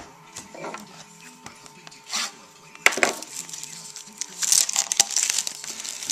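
Crinkly wrapper of a baseball card pack rustling and crackling as it is handled and torn open, with a sharp crack about three seconds in and denser crinkling near the end.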